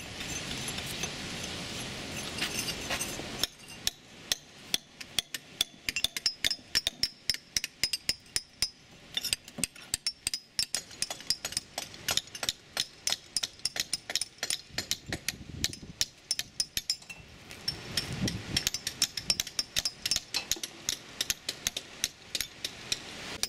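Hammers striking cold chisels, chipping the hardened sandy crust off a cannon recovered from the seabed: a rapid, irregular run of sharp metallic taps after a denser scraping start.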